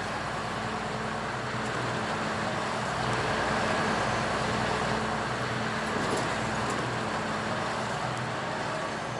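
CLAAS Dominator combine harvester running in the field: a steady engine drone under a constant rush of machinery noise, a little louder in the middle.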